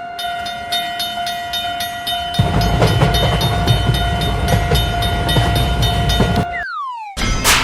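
Railroad crossing signal ringing: evenly spaced rapid dings over a steady tone, joined about two and a half seconds in by the low rumble of a train passing. The sound cuts off with a falling pitch sweep near the end.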